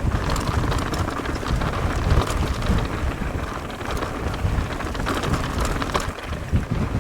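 Strong, gusty wind buffeting the microphone, with a heavy low rumble and scattered sharp crackles throughout.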